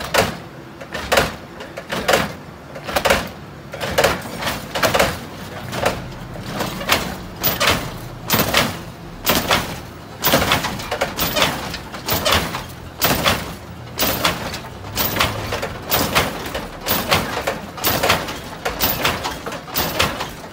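Lowrider car hopping on its hydraulic suspension: a rhythmic clunk and slam as the car bangs down, about once a second.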